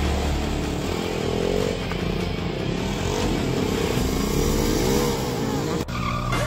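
Sport motorcycle engine revving up and down during a wheelie stunt, with a short break near the end.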